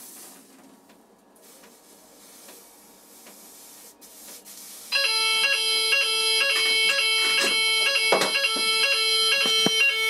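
A Banshee 32-tone fire alarm sounder starts suddenly about five seconds in, after a few seconds of faint hiss, and keeps sounding the French fire alarm tone in a steady repeating pattern. It is the alarm triggered by test smoke reaching the optical smoke detector. A few sharp knocks sound over it.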